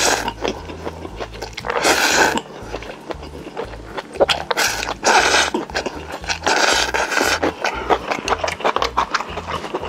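Close-up crunching and chewing as crispy roast chicken skin and nurungji are bitten and eaten. There are several loud crunches, with smaller wet clicks of chewing between them.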